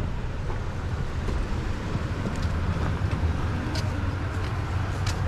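Motor vehicle engine running steadily, a low rumble, with a few faint clicks over it.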